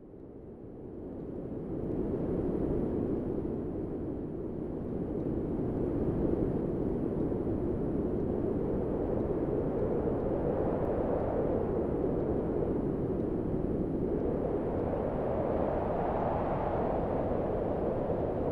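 A steady low rumbling noise fades in over the first two seconds and then holds, swelling slowly up and down.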